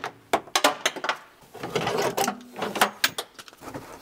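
Irregular clicking, clatter and rattling of trim, clips and fittings being worked loose and pulled out while a car's interior is stripped.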